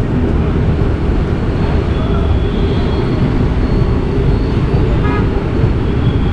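Uday Express double-decker train running, a loud steady rumble, with a faint high whine coming in about two seconds in.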